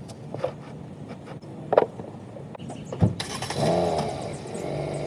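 A 2007 Hyundai Elantra's four-cylinder engine starting about three seconds in. A thump comes first, then the engine catches with a brief rise in pitch and settles into a steady idle. A few light clicks come before it.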